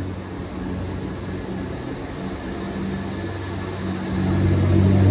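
A 2021 Range Rover Velar's 3.0-litre turbocharged Ingenium straight-six engine idling steadily, heard close up in the open engine bay, growing louder about four seconds in.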